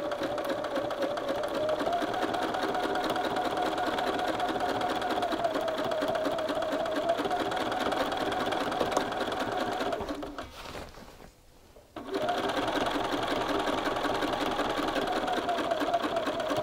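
Bernina sewing machine running steadily at a fast stitching speed, edge stitching through layers of shirt fabric with an edge-stitching foot. About two-thirds of the way through it slows and stops for about a second, then starts stitching again.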